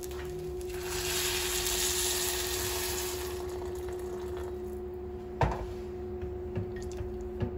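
Boiling water poured from an electric kettle into a pot of sautéed rice, hissing on the hot pan for a couple of seconds before settling. A single knock comes about five seconds in, over a steady low hum.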